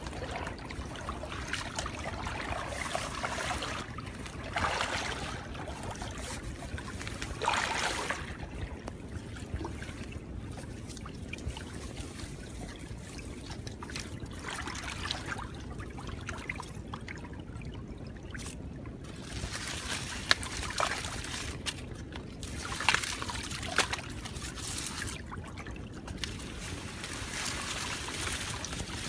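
Water trickling and sloshing in irregular surges every few seconds, with a few sharp knocks in between.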